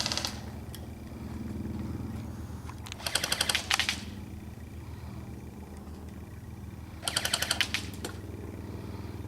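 Airsoft guns firing full-auto bursts of rapid clicking shots: one burst ending just after the start, then two more of about a second each, roughly four seconds apart.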